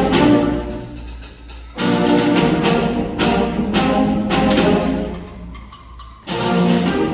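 Concert band playing, brass and percussion with loud accented chords. Twice the sound dies away, about a second in and again around five seconds in, before the full band comes back in loudly.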